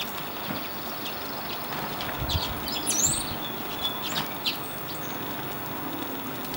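American robin splashing in a shallow puddle as it bathes, with a few short splashes over a steady outdoor hiss. A bird gives a quick run of high chirps and a rising whistle about halfway through.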